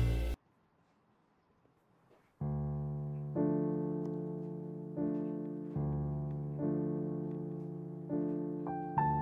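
Background music: a track cuts off abruptly just after the start, then about two seconds of silence. A slow new piece begins, each note or chord struck and left to ring out before the next, roughly once a second.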